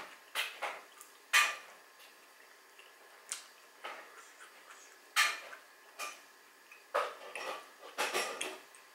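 Eating by hand from a stone plate: a string of short, sharp clicks and smacks, about a dozen, at irregular intervals, from food being picked off the plate and chewed.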